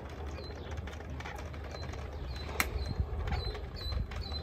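Small clicks and knocks from the plastic armor of a Shadow Trooper costume being handled as gloved hands work the snaps on the forearm and hand plates, with one sharp click about two and a half seconds in.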